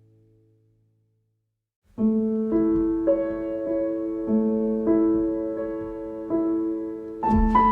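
Background music: a soft piano piece starts suddenly about two seconds in, with slow sustained notes, after a short silence as the previous track fades out.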